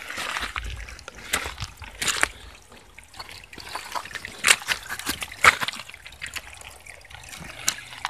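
Shallow stream trickling over rocks, with several sharp crunches and clicks of footsteps on wet stones and leaf litter.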